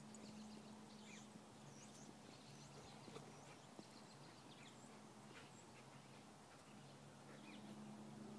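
Near silence: faint outdoor ambience with a low steady hum and a few faint high chirps.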